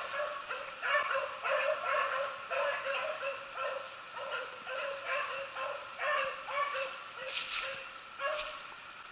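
Beagles baying together, overlapping hound cries several a second: the hounds giving tongue as they run a rabbit's scent trail.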